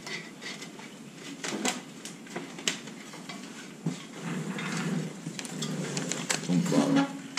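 Metal frame of a Summit Viper SD climbing tree stand being handled as its shoulder straps are looped under a platform brace: a string of sharp clicks, clinks and knocks with rustling in between.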